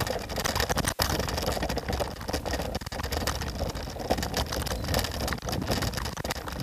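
Scooter in motion with no suspension: a steady rumble and rattling from the wheels over the pavement, mixed with wind on the microphone. The sound drops out briefly about a second in.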